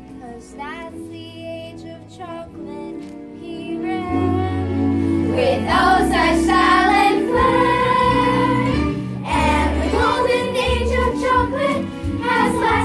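A children's cast singing a stage musical number together over backing music. A quieter instrumental lead-in gets louder about four seconds in, when the bass comes in, and the group singing starts a second later.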